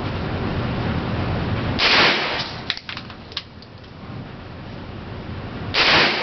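MP5 submachine gun fired in two short bursts about four seconds apart, the shots ringing off the walls of an indoor shooting range. A few light clicks follow the first burst.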